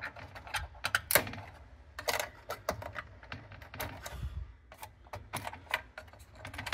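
Irregular sharp clicks and small knocks of plug-in connectors and a circuit board being worked loose inside the open chassis of a Tandberg 3002A preamp, the strongest click about a second in.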